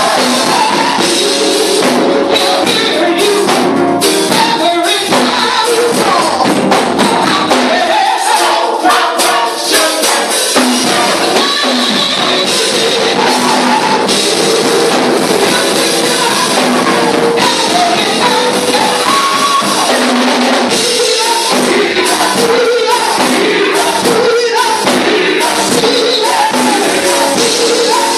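Gospel vocal group singing together into microphones over loud music, with a steady beat of sharp percussion hits throughout.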